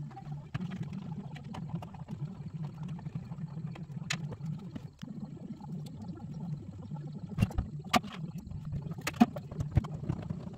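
Hand tools clicking and knocking on the van's bare metal floor pan as a screwdriver is worked under the dash, with a few sharp knocks, most in the second half. Under them runs a steady low rumble.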